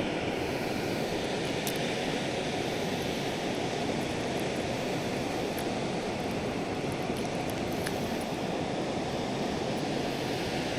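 Steady rush of water pouring through a dam spillway, an even roar without rise or fall.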